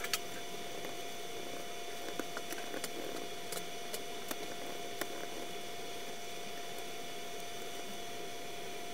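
Steady mechanical hum with a faint high whine, and a handful of light clicks and taps in the first five seconds.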